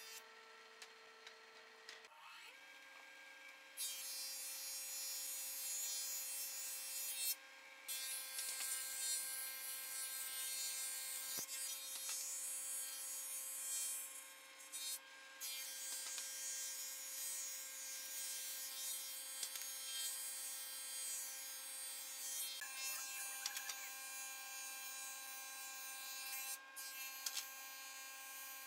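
Combination jointer-thickness planer running with a steady motor hum; about four seconds in, the hiss of its cutter head planing a pine board sets in and carries on, breaking off briefly three times.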